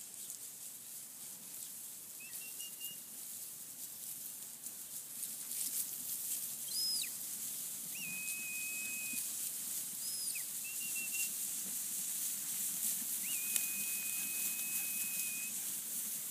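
Sheepdog handler's whistle commands during sheep herding: a series of about six whistles, short up-and-down swept notes and steady held notes, the longest held for about two seconds near the end.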